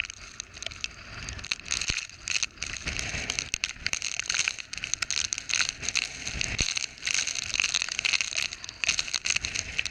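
Hurricane Ida's eyewall wind and driving rain battering the camera: an irregular crackling rush that swells and eases with the gusts.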